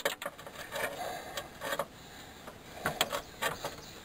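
Irregular short metallic clicks and knocks of hand tools working on a front-wheel-drive car's CV drive axle and front suspension.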